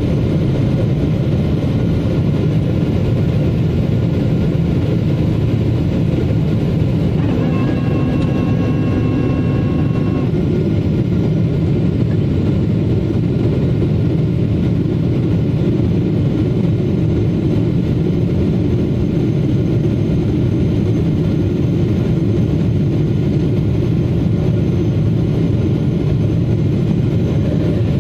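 Steady cabin noise of a Boeing jet airliner descending, heard from inside the cabin beside the engine: a constant low rumble of engines and airflow. About seven seconds in, a steady tone of several pitches sounds over it for about three seconds.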